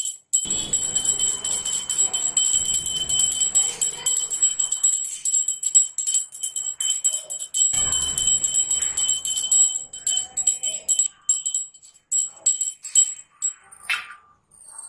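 Small brass hand bell (pooja ghanti) rung rapidly and continuously during an aarti, a bright steady ringing; about 11 seconds in it thins to scattered single strokes and then stops.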